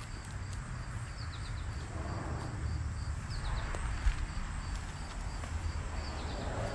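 Footsteps scuffing over grass and gravel while walking a dog, over a low outdoor rumble. Insects chirp in a faint, evenly repeating high pulse throughout.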